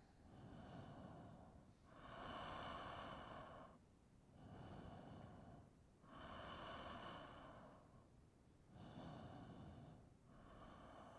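Slow, audible breathing, faint, with long drawn breaths of about two seconds each following one another in an even rhythm, inhales and exhales in turn.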